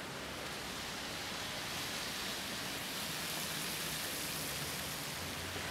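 Steady, even hiss of outdoor city street ambience, with no distinct events.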